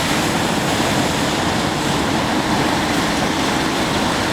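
Steady rushing noise of heavy rain and running floodwater.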